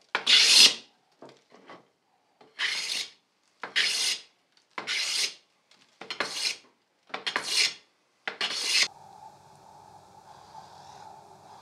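A hand edge tool shaving wood in about seven long scraping strokes, roughly a second apart, taking the corners off a square leg blank to make it octagonal. The strokes stop about nine seconds in, leaving a faint steady hum.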